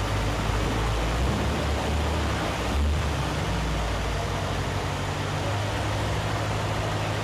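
1968 MGC GT's three-litre straight-six engine running with a steady low note as the car is driven slowly forward.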